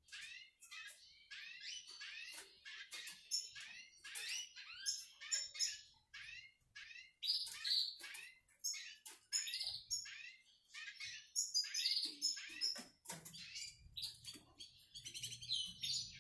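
Male hooded siskin (pintassilgo mineiro) singing a fast, continuous twittering song of quick high chirps and trills with only brief breaks.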